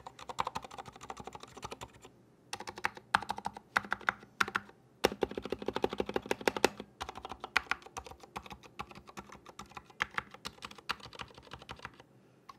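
Typing on a GamaKay LK67 mechanical keyboard fitted with Gateron Silent Black switches and PBT keycaps: an irregular run of keystrokes, with a fast, even flurry of key presses from about five to seven seconds in and short pauses around two seconds and near the end.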